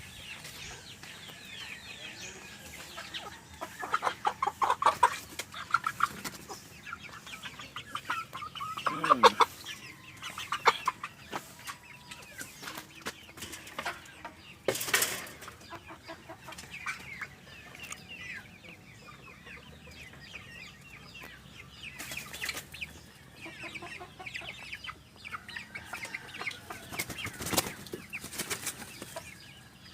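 Free-range chickens clucking, with louder runs of quick clucks about four seconds in and again around nine to eleven seconds. A few short, sharp noises break in, the loudest about halfway through.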